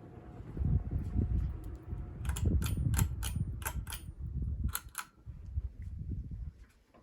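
Hunter Covent Garden ceiling fan running with a low rumble. A string of about eight sharp clicks comes in the middle, and the rumble cuts off shortly before the end.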